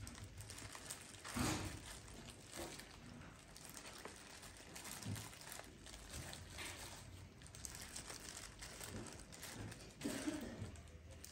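Disposable plastic food gloves crinkling faintly as hands scoop cooked rice from a pan and pat it out over a sheet of dried seaweed, with a few soft knocks.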